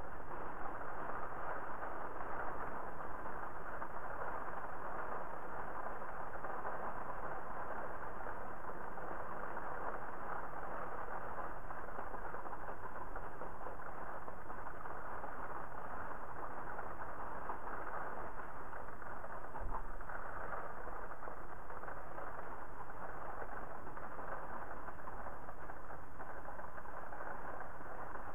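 Steady rain and wind heard through a window pane, a little gustier in the first few seconds. A single low thump about two-thirds of the way through.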